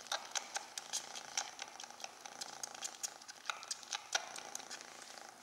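A young cat sucking on a human finger as if nursing: irregular soft wet clicks and smacks from its mouth, several a second.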